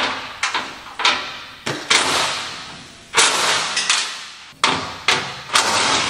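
Metal bangs and knocks on a combine's unloading auger tube while an extension tube is fitted to it: about nine loud, irregular bangs, each echoing briefly.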